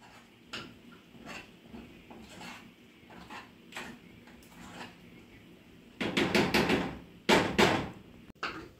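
A run of light knocks about every half second, then two loud bursts of rapid clattering, one right after the other, and a last short knock near the end.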